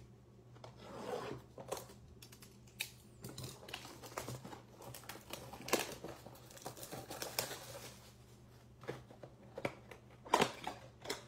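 Cardboard trading-card blaster box being handled and opened by hand: scattered taps, scrapes and short tearing and rustling of cardboard, with the loudest tearing near the end.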